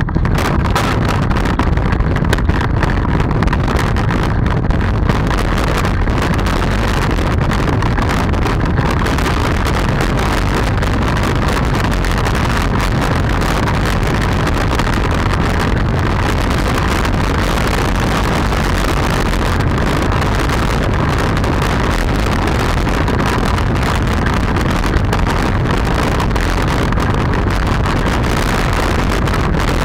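Unpowered soapbox cart speeding downhill: steady wind rushing over the onboard microphone and the rolling noise of its wheels on asphalt, with frequent small knocks and rattles as it runs over bumps.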